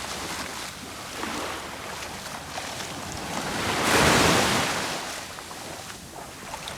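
Sea waves breaking on the shore: one wave swells and crashes about four seconds in, then washes back.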